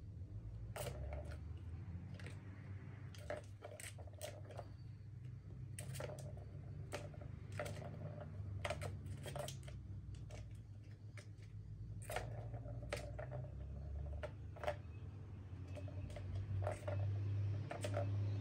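Plastic cat ball tower clicking and knocking as kittens bat its balls around the tracks: sharp irregular taps, a second or less apart, over a steady low hum.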